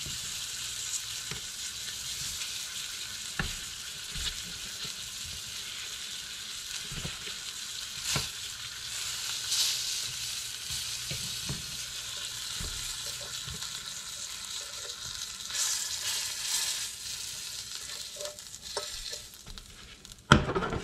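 Pieces of northern pike frying in butter in a skillet: a steady sizzle, with occasional light clicks as the pieces are turned and lifted out. Near the end the sizzle dies down and the pan gives a loud clunk.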